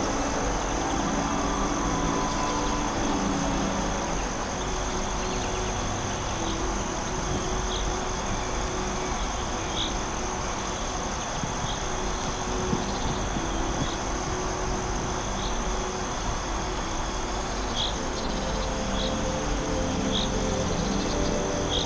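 Forest ambience: a steady high insect drone over a low, even rush, with short chirps every second or two from about a third of the way in.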